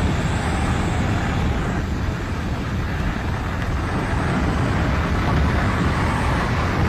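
Steady engine and wind noise of an airplane in flight, an even rush heaviest in the low end.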